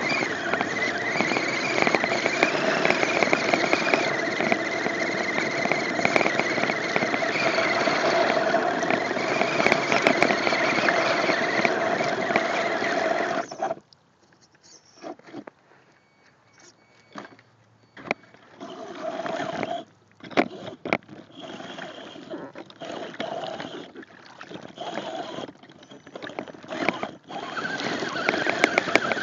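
Electric motor of an RC rock-crawler truck whining steadily under throttle while its mud tires churn through swamp water. About halfway it suddenly drops off, coming back only in short throttle bursts, then runs steadily again near the end.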